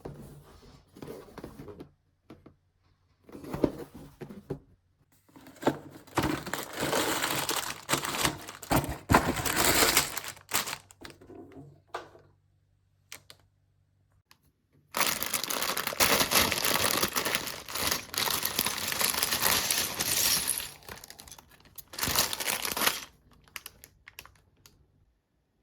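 Plastic packaging crinkling and tearing in two long stretches, with scattered small clicks between them: LEGO set bags being handled and torn open.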